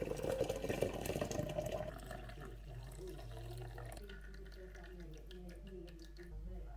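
Hot coffee being poured from a glass French press into a ceramic mug, loudest for about the first two seconds and then tapering off.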